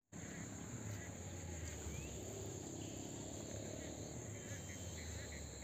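Insects trilling steadily in a field in one continuous high-pitched drone, with a faint low rumble underneath.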